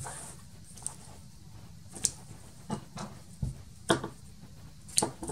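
White card stock and craft tools being handled on a cutting mat: a few short, sharp taps and paper rustles, the loudest about two, four and five seconds in, over a low steady hum.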